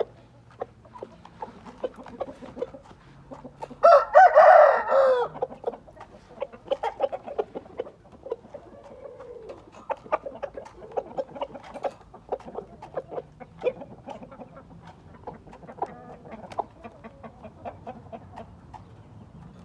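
A gamefowl rooster crows loudly once about four seconds in. Many short clucks and clicks run before and after it.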